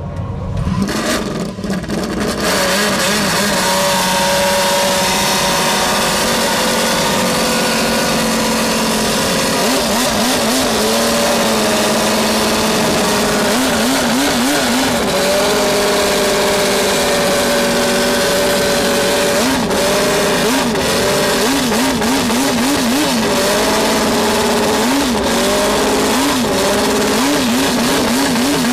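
Racing car engine started and running loud and steady from about two and a half seconds in, its revs rising and falling in short repeated blips.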